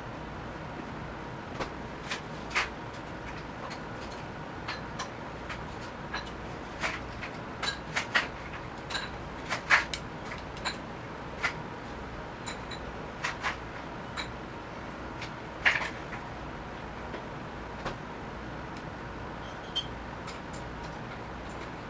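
Irregular light clicks and taps of small wooden miniature furniture pieces being handled and glued on a cutting mat, a few louder knocks near the middle, over a steady background hiss.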